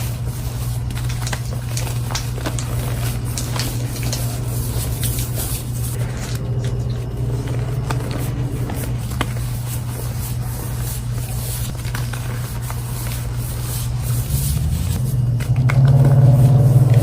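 Concrete mixer running with a steady low hum, with scraping and crackling from the concrete turning inside. The machine gets louder and a higher note comes in near the end.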